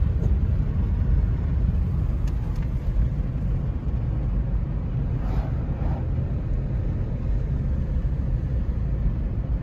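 Steady low rumble of a Ford car on the move, engine and road noise heard from inside the cabin.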